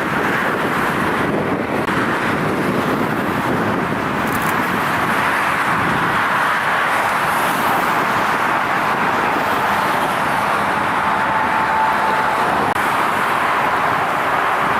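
Steady jet engine noise from an airliner at the airport, an even rushing sound with a faint brief whine about eleven seconds in.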